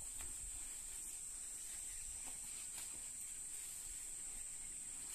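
Cows cropping and chewing green fodder, heard as faint irregular crunches and tearing clicks, over a steady high-pitched insect drone.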